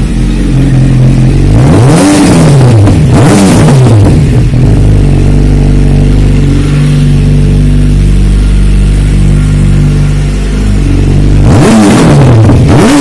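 Yamaha FZ1's 1000cc inline-four engine idling through its exhaust, blipped twice about two and three and a half seconds in, each rev rising and falling quickly, then settling back to a steady idle before two more quick revs near the end.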